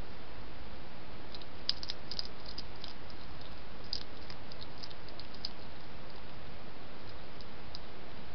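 Steady hiss from the trail camera's microphone, with faint, irregular little clicks, most of them in the first half, as a hedgehog forages and feeds at close range.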